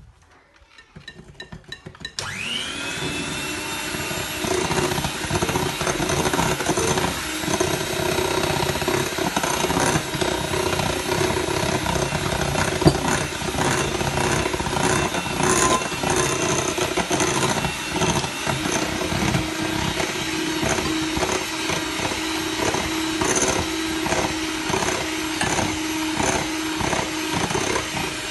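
Electric kitchen mixer beating sponge-cake batter: the motor switches on about two seconds in, winds up to speed and then runs steadily, with an uneven clatter over the hum.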